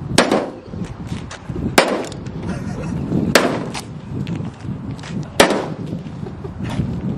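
A microwave oven being smashed: four hard blows land on it about every one and a half to two seconds, with smaller knocks and rattles between.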